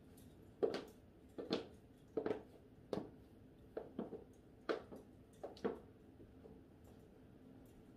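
Footsteps on a hard floor: about eight sharp steps, roughly one every three-quarters of a second, stopping about six seconds in.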